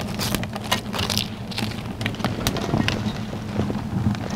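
Wood fire crackling and popping irregularly in the firebox of a homemade brick oven as sticks are fed and shifted, over a steady low hum.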